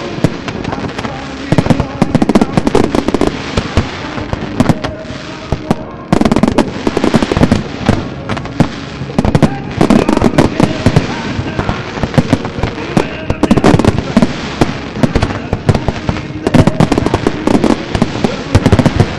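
Fireworks display: a dense, continuous run of bangs and crackling from aerial shells, loud and without a break.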